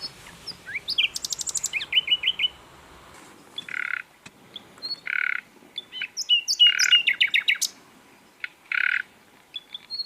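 Sikatan londo flycatcher singing a varied song of quick chirps, sliding whistles and rapid trills. It is broken by four short, harsh, rasping notes spaced about a second or more apart.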